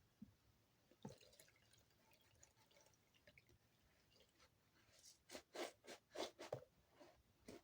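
A wet bar of EXXE soap being lathered by hand: faint soft squishing and small wet clicks, then a quick run of about half a dozen louder squelches over a second and a half near the end.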